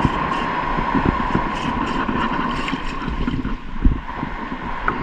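Wind buffeting an action camera's microphone with sea water lapping around a wading angler, as a steady rushing noise with scattered crackles.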